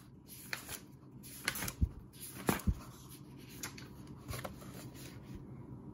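Pages of a thick paperback question book being turned and smoothed flat on a desk: a string of short papery rustles and light taps, the loudest about two to three seconds in.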